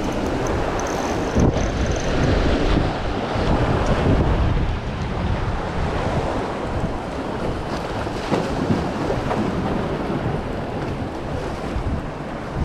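Wind buffeting the microphone over the wash of waves against a seawall, a steady rushing noise with uneven low rumble.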